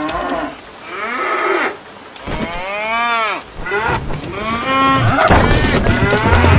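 Cows mooing: a series of long moos that rise and fall in pitch, coming faster and overlapping near the end.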